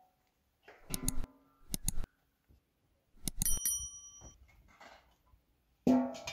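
Subscribe-button animation sound effects: clicks at about one and two seconds in, then a notification-bell ding with several bright ringing tones. A loud ringing clank comes near the end.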